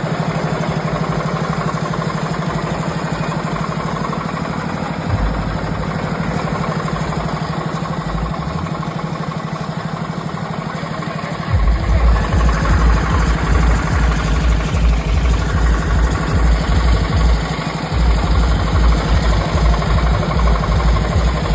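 Borewell drilling rig's engine running steadily. About halfway through, a deep, rapid thudding joins it, breaks off briefly, then returns.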